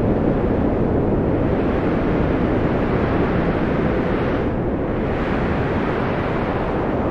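Strong wind blowing steadily with a deep, rushing noise. Its higher hiss thins out briefly about four and a half seconds in.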